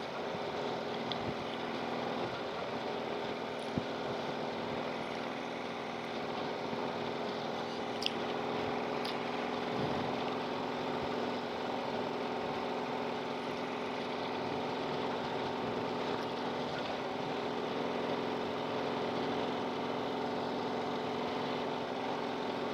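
Harley-Davidson Street Glide's V-twin engine running steadily at cruise, with wind and road noise, heard from the bike.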